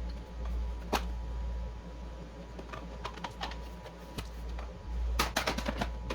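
Light clicks and taps from something being handled, single ones at first and a quick cluster near the end, over a low steady hum.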